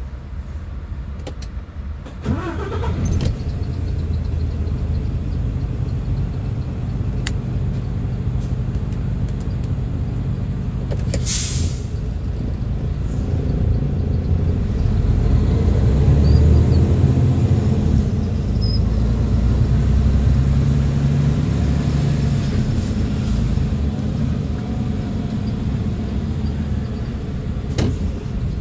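Heavy truck's diesel engine heard from inside the cab, running steadily, with a short hiss of air about eleven seconds in; from about fourteen seconds the engine grows louder as the truck pulls away, then settles.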